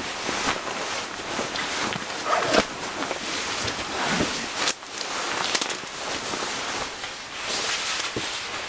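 Nylon sleeping bag rustling and swishing as a person wriggles into it on a camping cot, with a few knocks from the cot frame.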